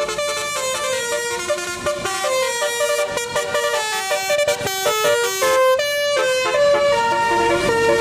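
Tour coach's telolet horn playing a tune: a quick run of musical horn notes that step up and down in pitch without a break.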